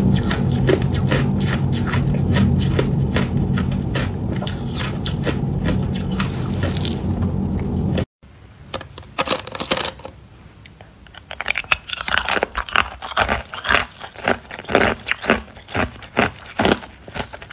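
Hard ice being bitten and crunched in the mouth: rapid sharp cracks and crackling. For the first eight seconds a steady low hum runs under the crunching; then the sound cuts out abruptly and the crunching resumes without the hum, growing louder again after a few seconds.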